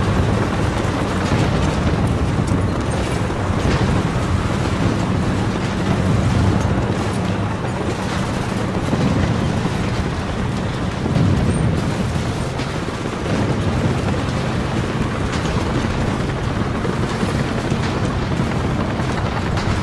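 Modern-warfare battle sound effect: a continuous low rumble of bombs and explosions with scattered crackles over a steady low drone, swelling briefly about halfway through.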